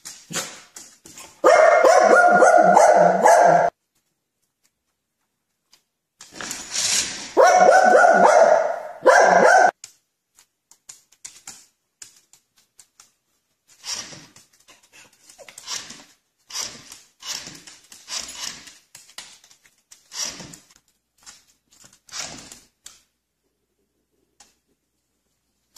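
Small dog barking at a remote-control toy car: two loud stretches of barking in the first ten seconds, then shorter separate barks about once a second.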